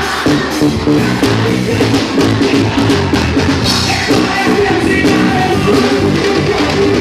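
Live band playing loud, amplified praise music, with a drum kit keeping a steady beat under keyboards and a singing voice.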